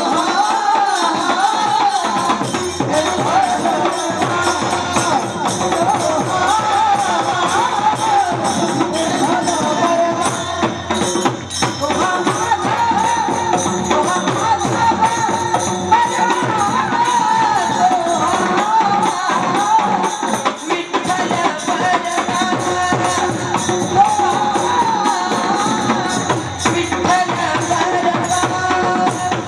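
A woman singing a Marathi folk devotional song in a wavering, ornamented melody, over steady jingling hand percussion and drum.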